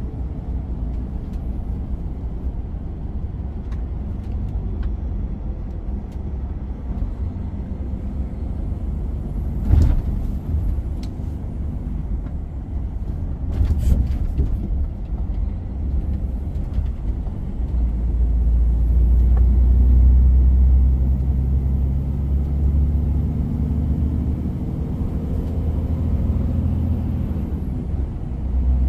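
Heavy truck driving, heard from inside the cab: a steady low diesel engine and road rumble, with two short knocks about ten and fourteen seconds in. About eighteen seconds in the engine grows louder and more pitched for a few seconds as it pulls harder, then settles.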